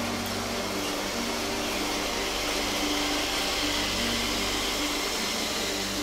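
Electric motors of a motorised Lego Technic train whirring and its plastic wheels rolling on plastic track as the long train passes close, the whir swelling a second or so in and easing near the end, over background music.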